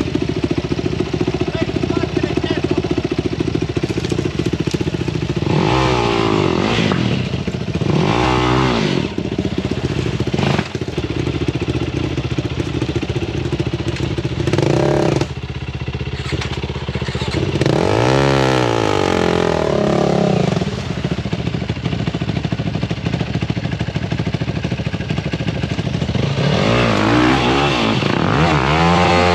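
Sport quad's engine running hard, revved up and down several times in bursts as it climbs a muddy creek bed, with the strongest revs about two thirds of the way in and again near the end.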